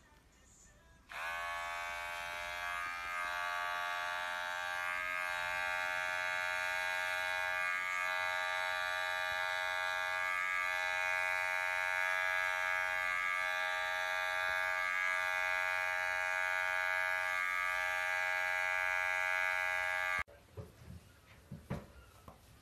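Electric pet hair clipper switched on about a second in, rising briefly in pitch as it spins up, then running with a steady high buzz while trimming the fur on a cat's paw. It stops abruptly near the end.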